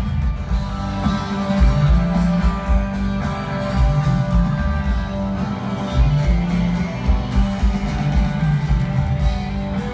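Rock band playing live in a stadium, heard from the stands: strummed guitars over bass and a steady drum beat, an instrumental stretch without vocals.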